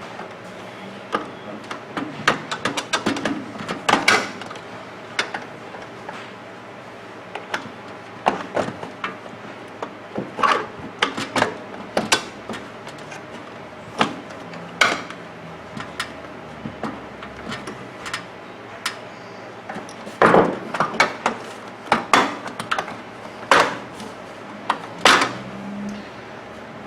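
Irregular clicks, taps and knocks of plastic as a microwave door's seal cover is worked loose from its retaining clips, with a quicker run of louder knocks in the last few seconds.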